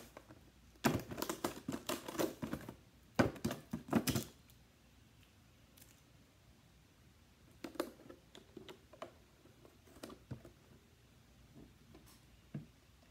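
Clear plastic clamshell food container being handled and opened: its stiff lid crackles and clicks in two quick runs in the first four seconds, then a few softer scattered clicks follow.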